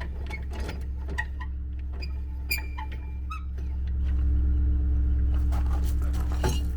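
Trailer tongue jack squeaking as it is worked, dry and in need of lithium lube: a string of short, high squeaks and clicks, becoming a steadier squeal about four seconds in, over a steady low hum.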